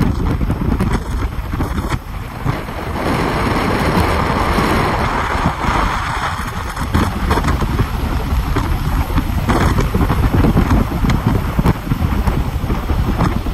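Car driving at speed on a wet road: steady wind buffeting on the microphone over the rumble of the car and the hiss of tyres on wet asphalt, with the hiss swelling for a few seconds early in the stretch.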